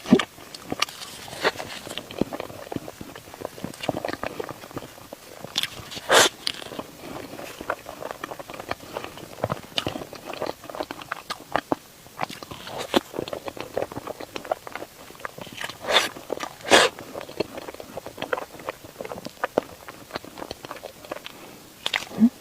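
Close-miked eating sounds: biting and chewing soft mochi cake, a dense run of small wet mouth clicks, with a few louder sharp clicks now and then.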